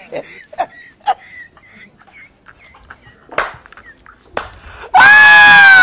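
Rooster crowing loudly about five seconds in: one long, slightly falling call. Before it there are only faint short chirps and a few small knocks.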